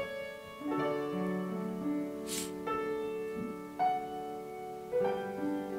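Piano playing slow, sustained chords, a new chord about every second.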